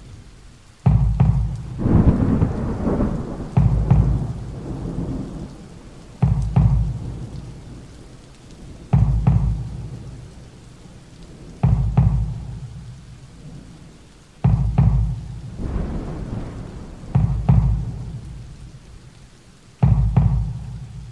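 Slow, deep drum hits on a soundtrack, one about every two and a half to three seconds, each starting sharply and dying away in a long rumbling tail.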